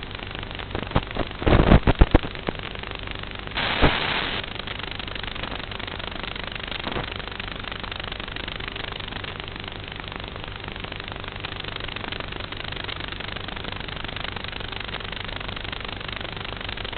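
Model aircraft in FPV flight: a steady rush of wind and motor with a faint hum, with a cluster of crackles and clicks about two seconds in and a brief louder rush near four seconds.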